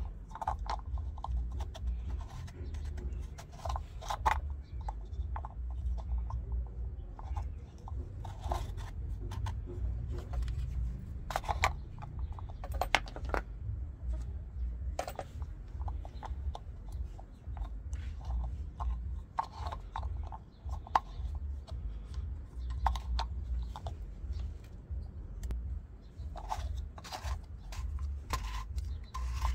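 Irregular clicks, knocks and scrapes of washing machine drain pump and filter housing parts being handled and reconnected by hand, over a steady low rumble.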